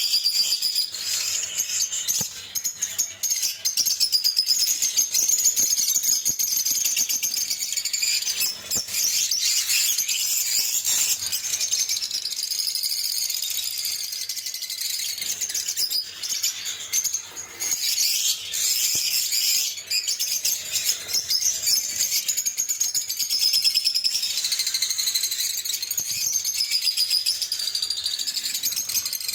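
Lovebirds chattering: a dense, unbroken stream of shrill, high-pitched chirps and squeaks from several birds calling over one another.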